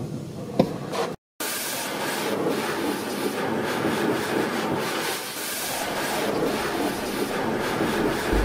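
Car-wash water spraying against the car's windows and body, heard from inside the car as a steady rushing hiss. It starts after a brief dropout about a second in.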